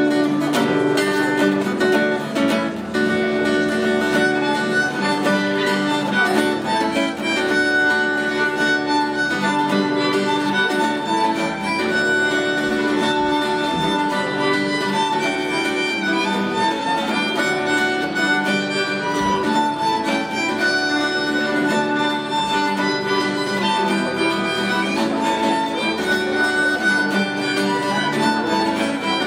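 Instrumental introduction to a Christmas carol, played live on two violins and an acoustic guitar before the choir comes in.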